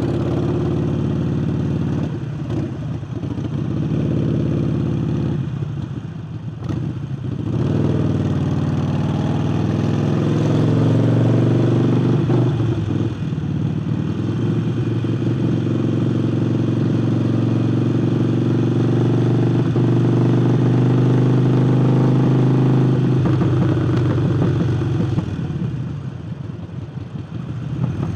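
Harley-Davidson Sportster Forty-Eight's air-cooled V-twin, fitted with a new air intake, running under way. The engine eases off twice early on, builds back up and holds steady, then drops off again near the end.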